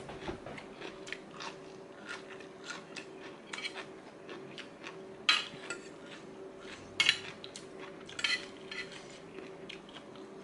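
Metal fork and spoon clinking and scraping against a ceramic plate as food is gathered, in a run of short light clicks. A few louder clinks come about five, seven and eight seconds in, over a faint steady hum.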